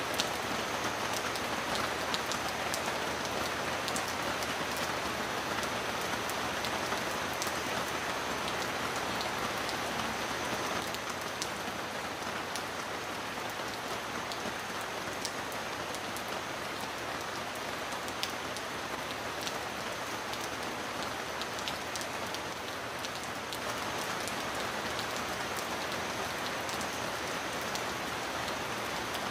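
Steady heavy rain falling into puddles on a stony path, with many close drops ticking sharply. It eases slightly through the middle before picking up again.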